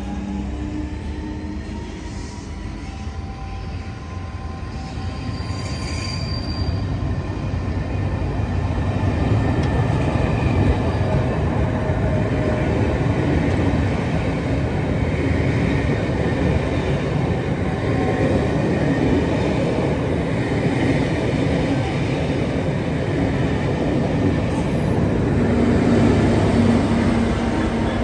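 Passenger coaches rolling past at close range, a steady wheel-on-rail rumble that grows louder over the pass. Near the end the trailing Class 66 diesel locomotive comes alongside, adding a low steady engine note from its two-stroke V12.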